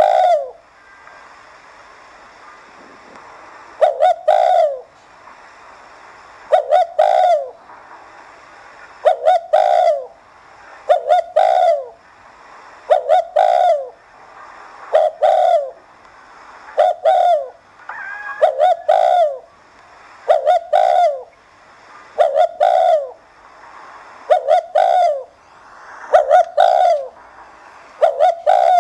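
Spotted dove cooing the 'thúc gù' coo: a short phrase of a few falling notes, repeated about every two seconds, some thirteen times.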